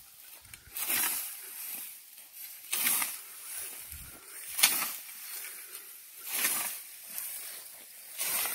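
Hand scythe swishing through dry standing grain stalks as the crop is mown by hand: five strokes, a stroke about every two seconds.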